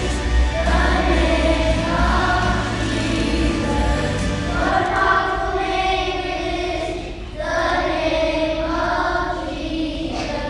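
A choir singing a slow song in long held phrases, with short breaks between phrases about four and a half and seven seconds in.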